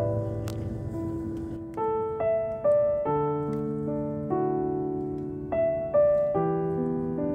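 Background music: a gentle piano tune playing a melody over sustained chords.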